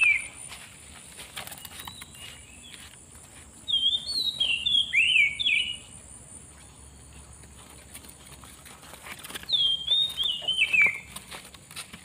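Oriental magpie-robin (kacer) song: loud phrases of sweet, descending whistled notes come twice, about four seconds and nine and a half seconds in, with the tail of another right at the start. A steady high-pitched buzz runs underneath.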